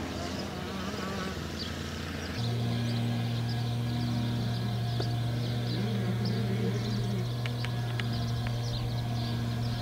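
A steady low mechanical hum that sets in abruptly about two and a half seconds in and holds one unchanging pitch, with a few sharp clicks near the end.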